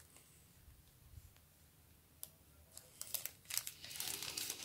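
Small plastic zip-lock sample bags crinkling as they are handled. Near silent at first, then a run of sharp crackles from about two seconds in that grows busier toward the end.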